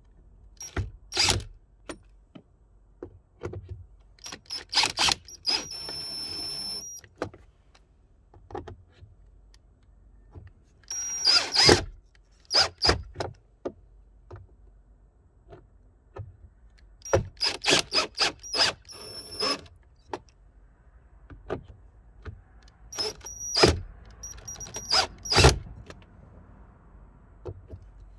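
Cordless drill driving screws in four short runs, a high motor whine each time, with bursts of clicking as it runs and as each screw seats against the clutch, which is set low so it does not over-torque.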